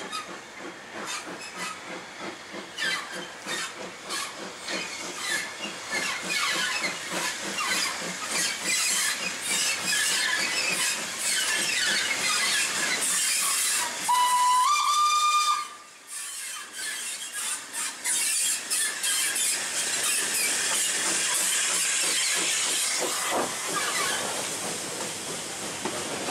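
Steam locomotive hauling coaches past, its exhaust beating in short chuffs that grow louder as it comes closer. About halfway through it gives one whistle blast of about a second and a half, stepping up slightly in pitch. After that the chuffing and the running noise of the passing coaches carry on.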